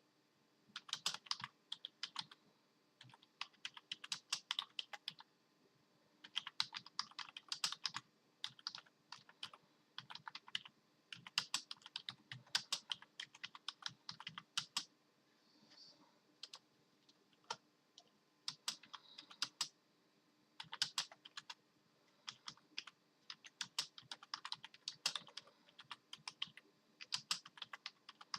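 Typing on a computer keyboard: quick runs of key clicks, each lasting a second or two, broken by short pauses.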